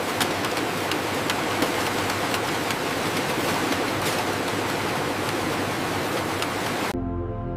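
A steady rushing, hiss-like noise with many faint irregular ticks running through it. It cuts off abruptly near the end, where music comes in.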